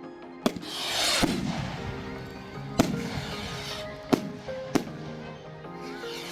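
Fireworks going off: five sharp bangs spread over a few seconds, the first two and the third each followed by a long crackling fizz, and more crackle near the end. Music plays steadily underneath.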